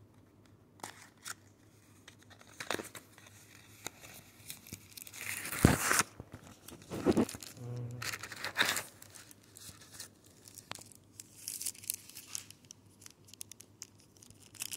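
Hands handling an earbuds' cardboard box and its packaging: scattered clicks and rustles, with louder tearing sounds about six and seven seconds in.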